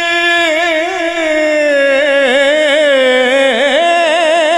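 A man singing an Urdu naat solo, without instruments: one long held note that breaks into wavering, ornamented runs, dipping lower in the middle and climbing back near the end.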